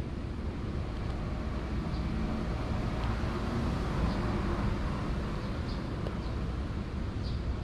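Steady low rumble of road traffic, swelling in the middle as a vehicle passes, with a few faint short high chirps now and then.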